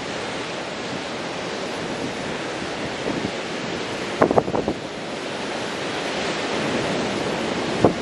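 Ocean surf breaking on a sandy beach: a continuous rushing wash of white water that swells gently over the last few seconds. Wind buffets the microphone briefly about four seconds in and again at the end.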